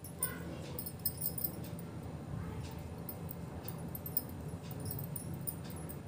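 Knitting needles clicking softly and irregularly as wool is knit, over a steady low hum.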